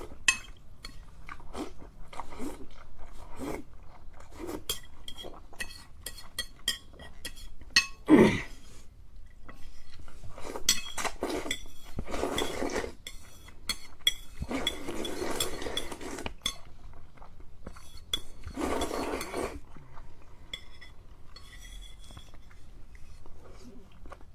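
Eating noodles from a bowl: utensils click and clink against the bowl, broken by a few longer stretches of slurping and chewing lasting a second or two each.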